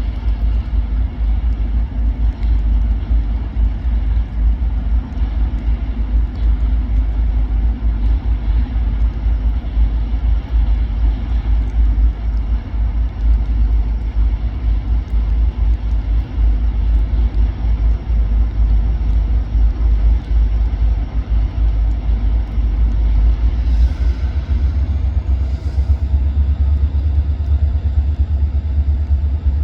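Car driving along the road, a steady low engine and tyre rumble. Near the end two brief sharp sounds come, and the low rumble changes pitch.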